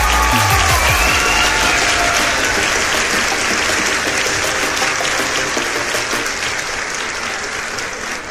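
Crowd applause, a dense clatter of many hands, slowly fading.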